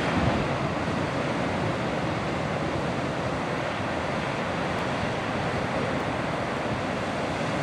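Ocean surf: large waves breaking and washing up a sand beach, a steady, unbroken rush of water.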